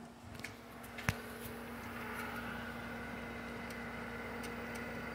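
Pool pump's electric motor running with a steady hum, getting louder over the first two seconds; a single sharp click about a second in.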